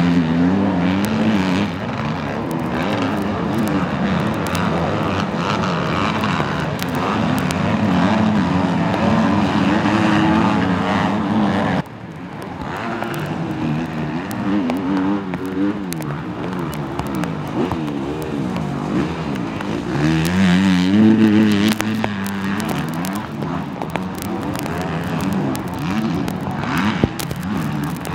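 Motocross bike engines revving up and down as the bikes race through deep mud. The engine sound drops off suddenly about twelve seconds in, then swells to its loudest rev around twenty seconds in.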